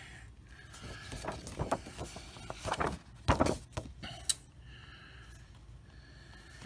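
Stiff paper game cards being handled and swapped: rustling and sliding, with a few sharper snaps about three to four seconds in, then only faint handling.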